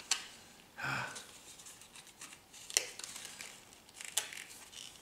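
Light rustling and a few sharp small clicks as small metal instruments and their packaging are handled.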